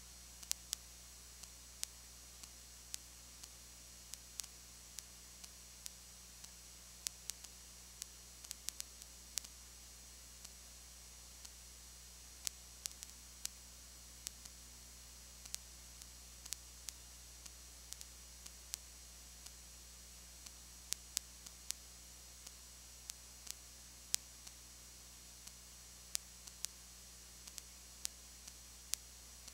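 Faint steady low electrical hum and hiss, broken by irregular sharp clicks of recording crackle, one or two a second. No crowd or game sound is heard.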